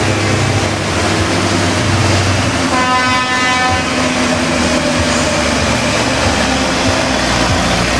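Scania truck's diesel engine running hard under full load as it drags a truck-pulling sled. About three seconds in, an air horn sounds for about a second over the engine.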